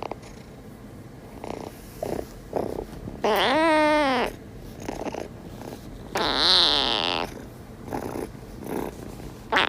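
A domestic cat meowing: two long drawn-out meows, each rising then falling in pitch, with shorter sounds between them.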